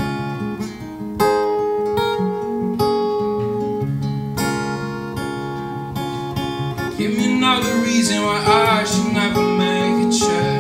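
Acoustic guitar played live with a steady run of picked and strummed chords; about two-thirds of the way through a young man's singing voice comes in over it.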